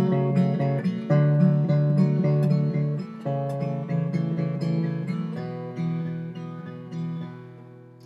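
Taylor 514ce acoustic guitar, solid cedar top with mahogany back and sides, being picked: a run of ringing notes that overlap, then fade away near the end.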